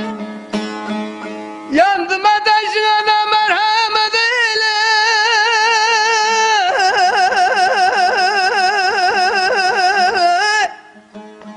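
Barak-style Turkish folk singing: a man's voice holds long, high, ornamented notes, with a wide, fast vibrato in the second half, over plucked bağlama strings. The strings are heard alone at the start and again when the voice stops near the end.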